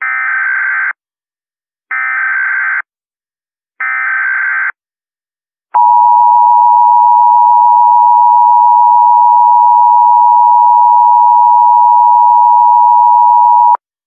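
Emergency Alert System tones announcing a Civil Emergency Message: three short bursts of warbling SAME header data, about a second each and a second apart, then the steady two-tone attention signal (853 and 960 Hz sounded together) held for about eight seconds and cutting off just before the end.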